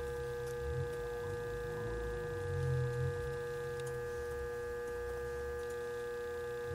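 Hipotronics high-pot tester humming with a steady mid-pitched tone while its output voltage is turned up for a high-voltage leakage test.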